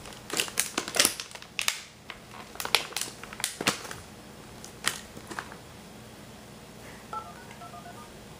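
Clicks and clatter from the tape mechanism of a Zenith TV/VCR combo as it takes in and starts a VHS tape, thickest over the first few seconds and thinning out by about five seconds, over a low steady hum. A few faint short beeps sound about seven seconds in.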